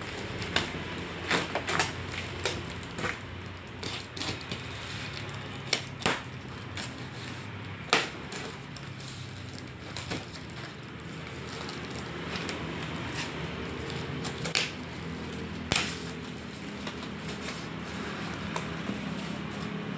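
Cardboard box being opened by hand: packing tape cut and torn and cardboard flaps crackling as they are pulled back, in irregular sharp snaps with several louder ones.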